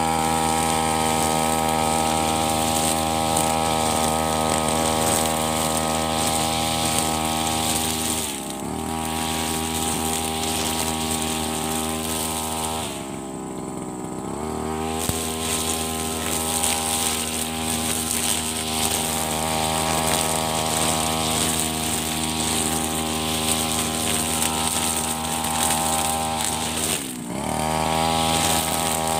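Backpack brush cutter's engine running at high revs, its nylon trimmer line cutting grass. The revs drop briefly about a third of the way in, ease off for about two seconds around the middle, and dip again near the end before winding back up.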